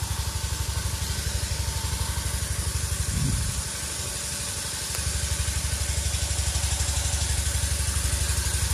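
Vehicle engine running with a fast, even low pulsing. About three seconds in there is a short rising sound, then the pulsing eases for a second or so before it comes back.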